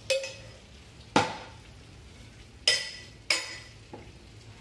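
A metal spoon knocking against a stainless steel pan while filling is scooped out: a few sharp clinks, each ringing briefly, with a smaller knock near the end.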